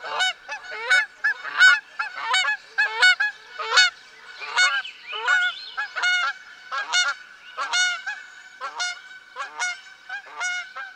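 A flock of birds calling over and over, about two short calls a second, several overlapping, each call arching up and down in pitch.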